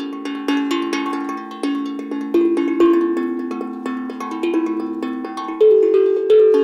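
Background music: an unhurried melody of struck, pitched notes, each starting sharply and ringing away before the next.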